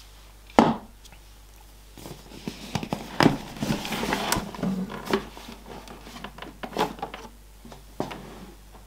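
Handling noise from unpacking computer parts: crinkling plastic packaging with scattered light clicks and knocks, busiest about three to four seconds in.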